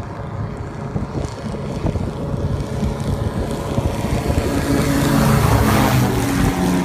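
Airfish 8 wing-in-ground-effect craft's engine and propeller running as it skims over water, growing louder toward a peak about five or six seconds in, with the pitch dropping as it passes by.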